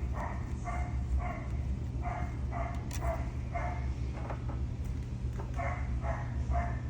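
A dog barking repeatedly in runs of about two barks a second, with short pauses between the runs, over a steady low hum.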